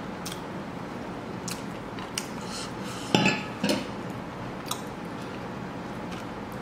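Tableware clinking as a serving bowl of greens is tipped over a plate and handled: scattered light taps, then two sharp clinks about half a second apart roughly three seconds in.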